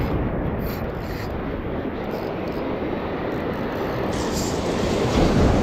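Sea waves breaking and washing over a breakwater of concrete tetrapods: a steady low rushing rumble that eases a little, then builds again near the end.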